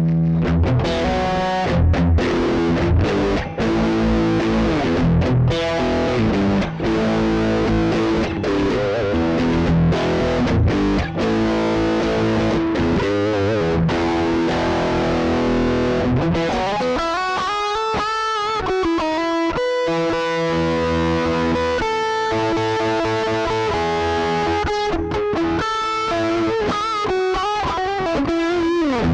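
Strat-style electric guitar played through a Behringer GDI21 amp-simulator distortion pedal: distorted chords and riffs with short stops, then from a little past halfway single-note lead lines with bends and vibrato.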